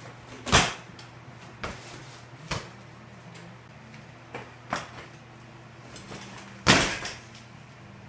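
Sunday BMX bike being ridden and hopped on a concrete floor: a string of knocks and clunks from the tyres and frame, the loudest about half a second in and near the end.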